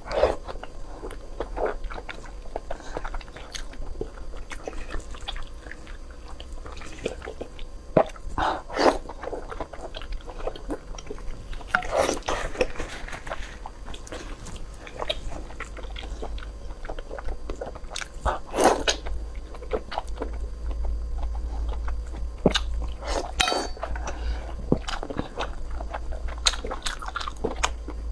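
Close-miked mouth sounds of eating spicy noodles and pork: wet chewing and biting with frequent small clicks, broken by a few louder, longer slurps of noodles.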